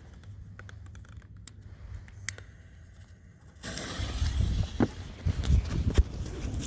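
A firework going off: a few faint clicks, then about three and a half seconds in a sudden steady hiss starts, with a low rumble and scattered sharp pops and crackles.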